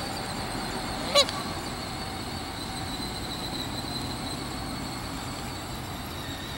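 A Canada goose gives one short, loud honk about a second in, over steady outdoor background noise.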